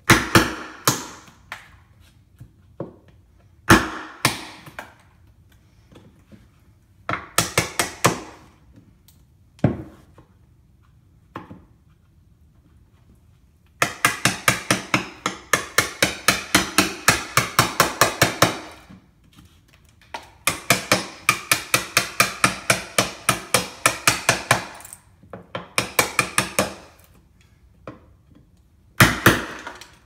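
Hammer striking a wood chisel, chopping a mortise for lock hardware in a wooden door. There are scattered single blows and short clusters, then two long runs of quick taps at about five a second, and a few hard blows near the end.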